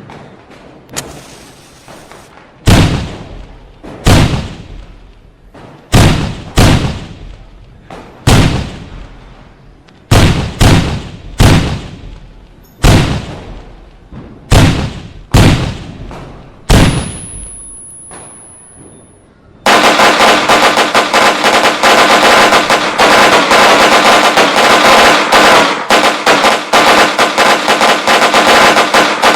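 Fireworks exploding one at a time: a sharp bang with a fading rumble every second or so, sometimes two or three in quick succession. About two-thirds of the way through, this gives way suddenly to a continuous loud barrage of crackling firecrackers.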